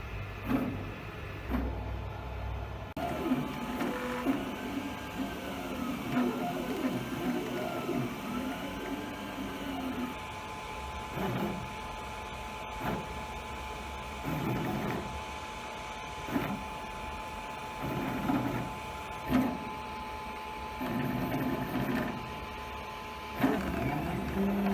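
FDM 3D printer at work: its stepper motors whine in repeated rising and falling pitch glides and short bursts as the print head moves, over a steady hum.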